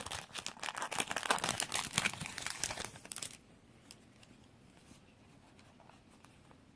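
Foil Yu-Gi-Oh booster pack wrapper being torn open and crinkled in the hands, a dense crackle for about three seconds that stops abruptly, leaving only a few faint ticks.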